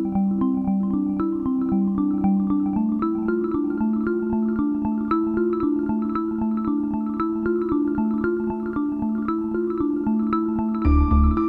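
Background instrumental music: a quick run of light, struck-sounding notes over a held low line. A heavier low beat comes in near the end.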